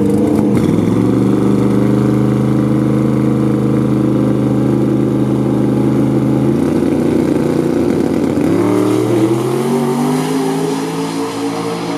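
Twin-turbo Fox-body Mustang drag car's engine held at a steady high rpm on the starting line. About six and a half seconds in it launches with a rough burst, and the engine note then rises in pitch as the car pulls away down the track.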